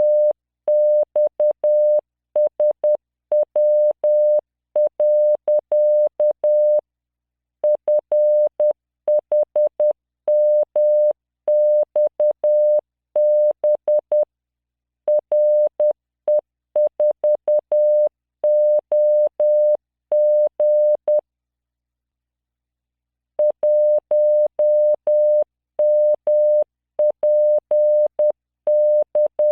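Computer-generated Morse code practice tone at 600 Hz, keyed on and off in dots and dashes at 10 words per minute, sending groups of random letters, numbers and punctuation. There is a faint click at each on and off, and a pause of about two seconds about two-thirds of the way through.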